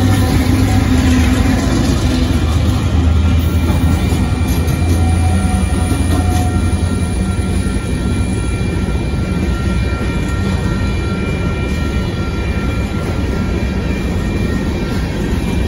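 Union Pacific diesel locomotive passing close by, its engine's low hum strongest for about the first six seconds, then gravel hopper cars rolling past with steady wheel-on-rail noise. The grade-crossing bell rings steadily throughout.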